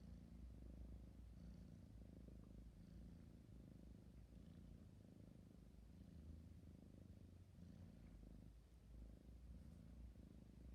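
A kitten purring faintly and steadily, the purr swelling and easing back in a regular rhythm with each breath in and out.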